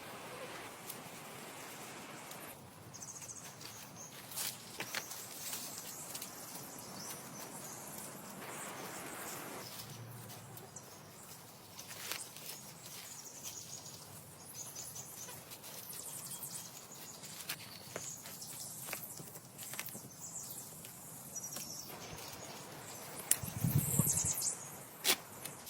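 Quiet outdoor ambience with faint, intermittent bird calls and scattered light clicks and knocks.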